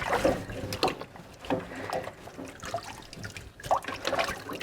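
Warm bath water sloshing and trickling irregularly as a small puppy is washed in it.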